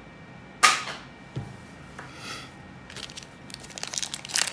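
A single sharp knock about half a second in. From about three seconds in, a plastic bag crinkles and rustles as it is handled, getting busier toward the end.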